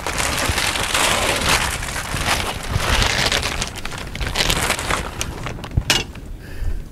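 Plastic poly tarp crinkling and rustling as it is pulled and smoothed over a roof edge by hand. The rustle dies down about five seconds in, with a few sharp clicks near the end.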